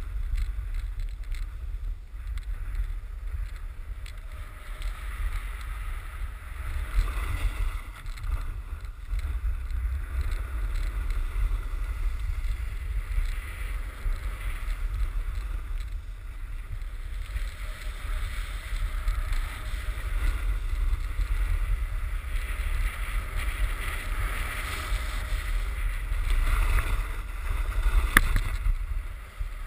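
Wind buffeting an action camera's microphone during a snowboard run, with the hiss of the board sliding over snow and one sharp knock near the end.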